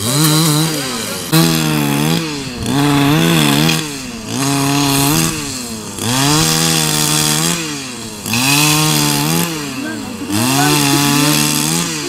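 Chainsaw engine revved up and let back down about seven times in a row, its pitch climbing, holding for a second or so, then falling back.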